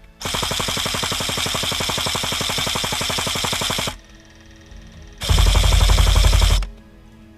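Airsoft electric guns firing on full auto: a long burst of rapid, even shots lasting about three and a half seconds, then a shorter, louder burst with a heavy low thud about five seconds in.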